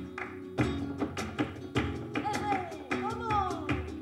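Live flamenco guajira: Spanish guitar playing, with sharp rhythmic strikes from the dancer's footwork and the percussion. In the second half a voice twice cries out, falling in pitch.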